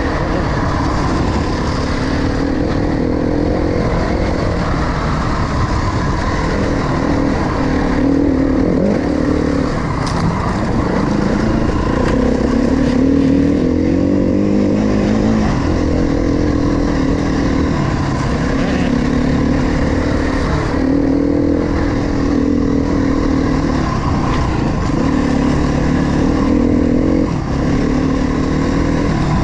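KTM 350 XC-F's single-cylinder four-stroke engine being ridden on a dirt trail, its pitch rising and falling continually with the throttle and gear changes.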